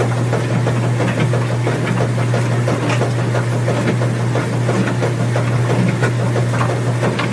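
Washing machine running: a steady low motor hum with irregular clicks and knocks from the turning drum throughout.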